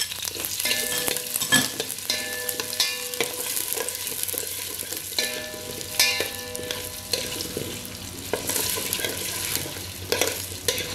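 Shallots, garlic, ginger and green chillies sizzling as they sauté in hot oil in a stainless steel pot, with a spoon stirring them and scraping and knocking against the pot.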